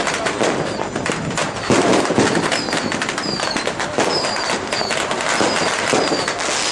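Strings of firecrackers going off in a continuous dense crackle of rapid pops. From about halfway through, short high falling whistles repeat about every half second.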